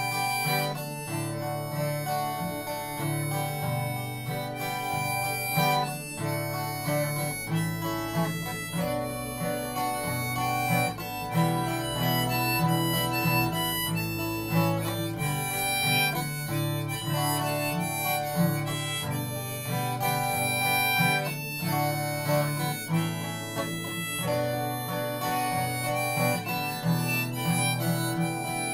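Harmonica playing held melody notes over acoustic guitar accompaniment: an instrumental passage of a worship song.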